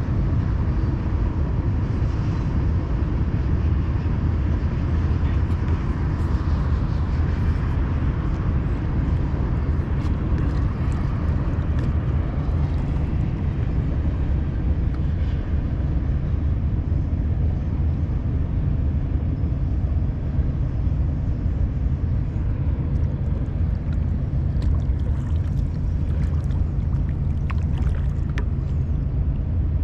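Steady low rumble of wind buffeting the microphone, with a few faint clicks near the end.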